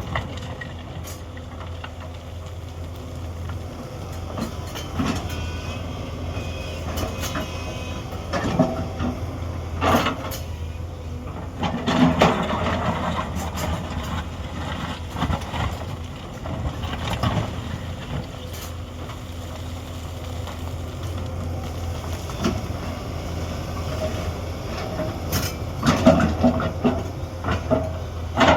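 Hyundai 210 excavator's diesel engine running steadily with a low hum, under scattered metallic clanks and scrapes from the working machine. A few louder knocks come around the middle and a cluster near the end.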